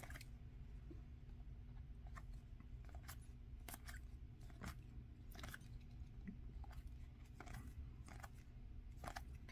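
Glossy Topps Chrome baseball cards being thumbed through by hand, card edges sliding and flicking past each other in faint, irregular clicks, a little over one a second, over a low steady hum.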